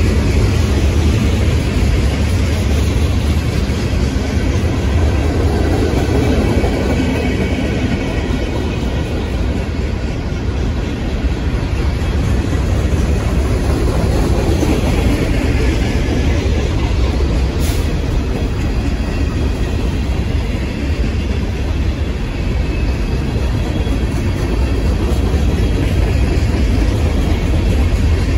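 Freight cars of a CSX manifest train rolling past close by: a steady, loud rumble and clatter of steel wheels on the rails.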